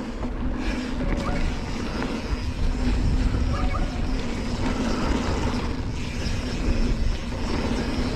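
Mountain bike rolling fast over a dry, dusty dirt trail: a steady rush of wind over the microphone with tyre noise and a few brief knocks from the bike.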